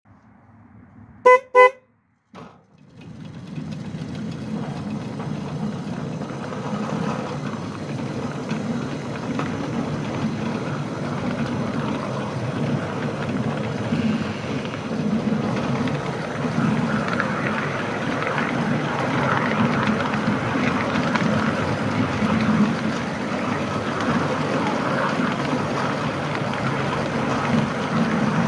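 Two short toots from a 5-inch gauge model locomotive's whistle, followed by the steady running noise of the train on the track.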